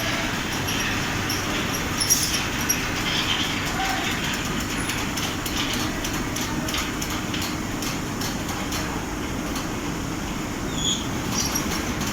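Large fabric spreader machine running, a steady mechanical noise with scattered light clicks and two brief sharp knocks a little after two seconds in.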